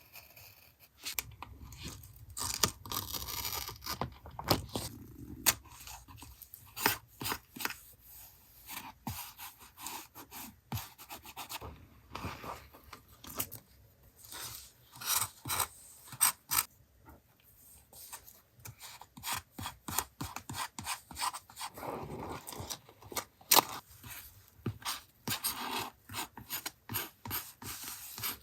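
Paper collage work close to the microphone: paper and stickers being handled, rubbed and scraped, with many sharp, irregular clicks and taps.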